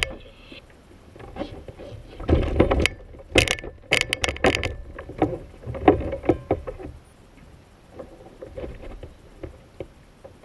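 Irregular knocks and clatter from a catch and gear being handled on a plastic fishing kayak, over the wash of water against the hull. The knocks come thick in the first seven seconds, with the loudest about six seconds in, then thin out.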